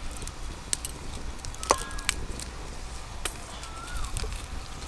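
Boiled potato being mashed and mixed by hand with sliced raw onion and dried red chillies in a steel plate, with a scattering of light sharp clicks against the plate. A bird chirps briefly in the background.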